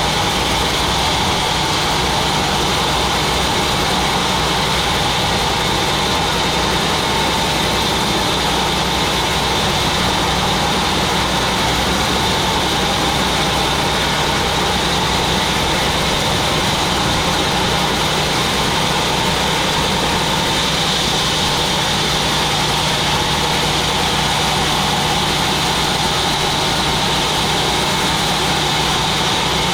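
Sawmill machinery running steadily: an even motor drone with a constant high whine, without changes in load.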